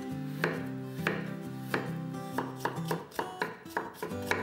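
Chef's knife slicing a carrot into thin strips on a wooden cutting board: a few separate knocks of the blade on the board, then a quick run of chopping strokes in the second half.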